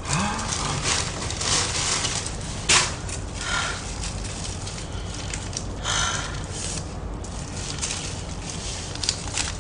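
Plastic delivery bag and food packaging rustling and crinkling as they are unpacked by hand, with one sharp snap a little under three seconds in.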